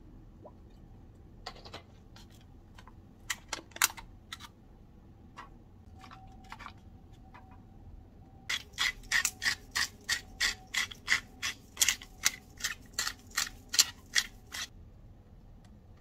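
A pepper mill being twisted over raw steaks: a fast, even run of crisp ratcheting clicks, about three a second for some six seconds. A few scattered clicks come before it.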